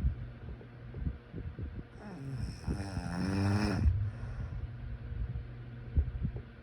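A sleeper snoring: one long snore starting about two seconds in and lasting nearly two seconds, ending in a pitched, rising rattle. Short low knocks come at the start and again about six seconds in.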